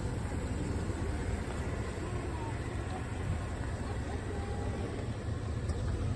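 Steady low rumble of outdoor background noise, with faint voices in the background.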